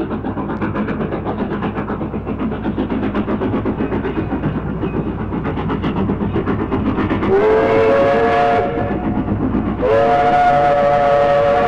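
Steam train running with a rapid, even rhythmic clatter, then two steam whistle blasts, each sounding several tones together and sliding up in pitch as it starts: a short one a little past halfway and a longer one near the end.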